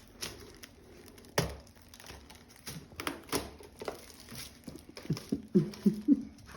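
Packaging being handled and opened: crinkling and rustling with scattered light clicks, and a sharp knock about a second and a half in.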